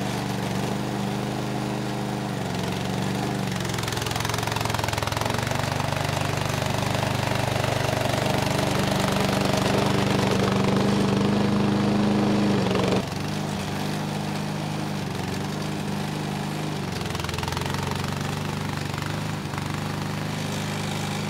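Small engine of a remote-control tracked lawn mower running steadily while the mower drives about carrying a rider. It grows louder for several seconds, then drops back suddenly well past halfway.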